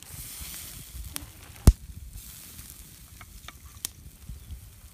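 Tandoori chicken pieces sizzling on an oiled wire grill net over a hot stove: a steady hiss with scattered sharp clicks, and one loud sharp knock about a second and a half in.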